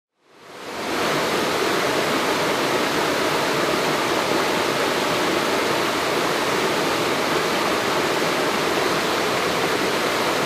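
Rushing water of a rocky brook, white water tumbling over boulders in a steady rush that fades in over the first second.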